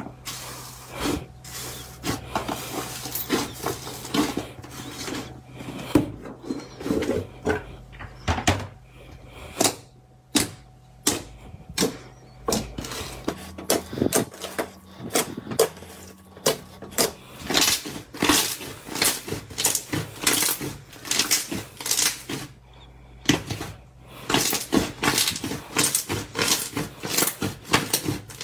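Hands squishing, poking and pressing a milk-tea-coloured foam slime with black bead 'pearls' mixed in, making many irregular sharp, wet clicks and pops.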